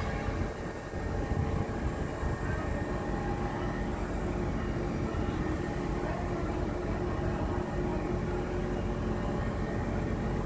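Heavy construction machinery running steadily: a continuous low engine drone with a steady hum over it.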